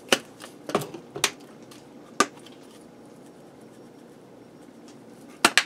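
Spice shaker containers handled over an electric pressure cooker pot, giving sharp, short clicks and taps: a quick cluster in the first second and a half, a single click about two seconds in, and a close double click near the end.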